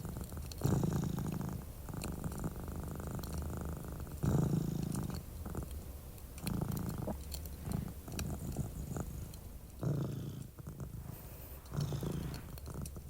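Domestic cat purring close up, a low rumble swelling and fading in waves about every two seconds with each breath. Faint crackling of a fireplace ticks along behind it.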